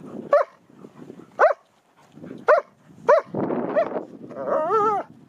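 Dog vocalising: four short, sharp yips about a second apart, then a longer, wavering, whining call near the end.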